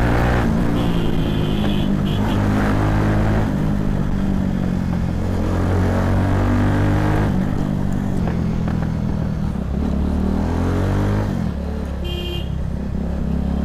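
Bajaj Pulsar 220 motorcycle's single-cylinder four-stroke engine running under way, heard from the rider's seat with wind noise. The engine note shifts several times as throttle and gears change and dips about eleven seconds in. A short high beep sounds about twelve seconds in.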